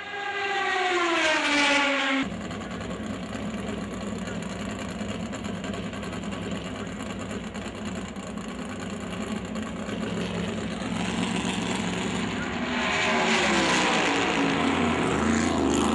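Race car engines at speed. One car sweeps past in the first two seconds with its pitch falling, then, after a cut, a steady engine drone. Another car passes from about eleven seconds on, again falling in pitch and loudest near the end.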